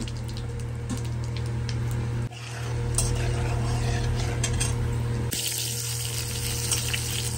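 Whole spices sizzling in hot mustard oil in a metal kadai, with a metal spatula stirring and scraping against the pan. The sizzle breaks off and comes back abruptly twice, a little over two seconds in and about five seconds in.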